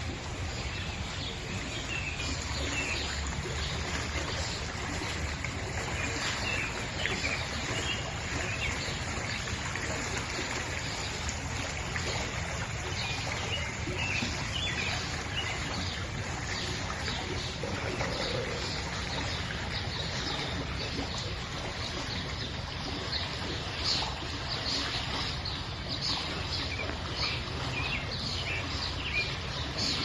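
Forest stream flowing steadily, with birds chirping over it; in the last third the chirps come quick and repeated.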